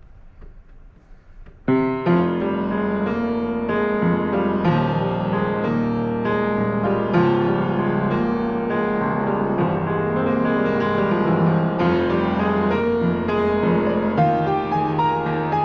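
Piano music starting suddenly about two seconds in, then playing chords and a melody at a steady level.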